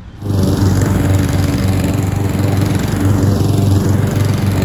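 Husqvarna HU700H walk-behind lawn mower's engine running steadily as it cuts a strip of tall, thick grass at its lowest height setting.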